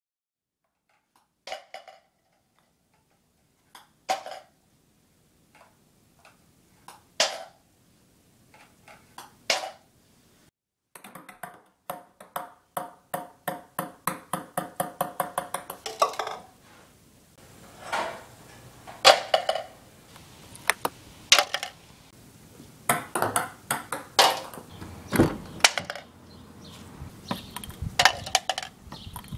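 Ping pong balls bouncing on hard surfaces and into a plastic cup: a string of sharp, separate ticks, with one long run of quickening bounces settling down about halfway through.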